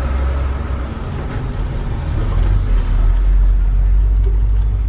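Motorhome driving, its engine and tyre rumble heard from inside the cab: a steady deep rumble that grows louder about halfway through.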